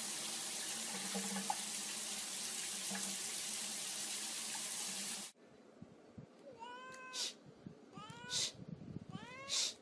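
A steady hiss for about five seconds, then it cuts off and a cat meows three times, each call rising in pitch.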